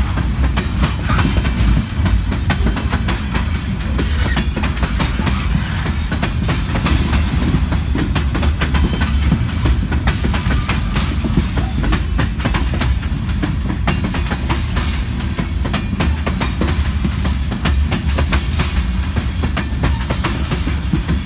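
Freight train's covered hopper cars rolling past close by: a steady low rumble of steel wheels on the rails, with a continuous stream of clicks and clacks from the wheels on the track.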